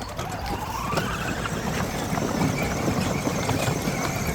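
A motor running, its whine rising in pitch over about the first second and then holding steady with a low rumble.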